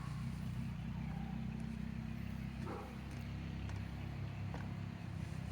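Steady low background hum with a few faint clicks and a soft rustle about halfway through.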